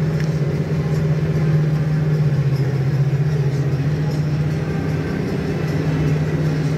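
Tractor engine running steadily under load, heard from inside the cab as it pulls a 4 m cultivator through wheat stubble: an even, low drone.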